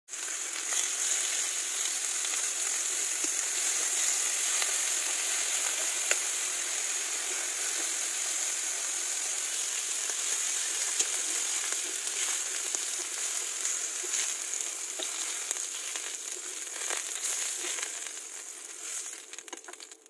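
Sliced pork sizzling as it grills in a hot black double-sided grill pan, a steady frying hiss with occasional pops and clicks. The sizzle fades away near the end.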